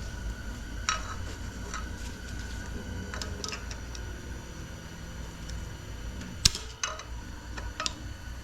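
Irregular sharp metallic clicks and clinks of snap ring pliers working at a snap ring inside a 4L60 automatic transmission, the loudest about six and a half seconds in.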